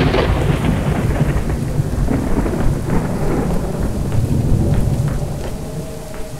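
Thunder rumbling over steady rain, dying down near the end.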